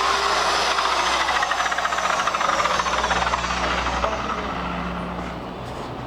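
Electric power tool working against a surface with a dense, rapid rasping, of the kind used to grind or sand fibreglass. It dies away from about four seconds in.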